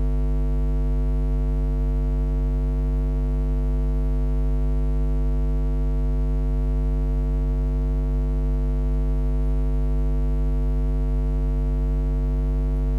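Loud, steady electrical mains hum with a buzzy stack of overtones, unchanging, picked up in the announcer's microphone and sound line.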